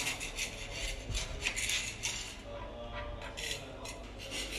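Ball-ended grout tool scraping and clicking along the joints of glazed wall tiles as fresh two-part epoxy grout is pressed smooth: a run of small, irregular, high-pitched scrapes and clinks.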